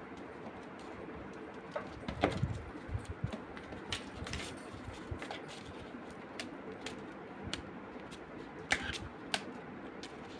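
Irregular light taps and scratches of a kitten's paws and claws on a cardboard box as it scrambles and bats at a waved leaf stalk, the sharpest taps about two seconds in and near the end.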